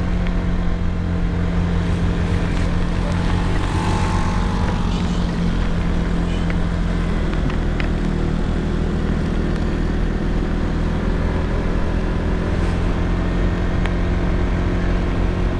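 Motorcycle engine running steadily at cruising speed, a constant drone under wind and road noise from riding.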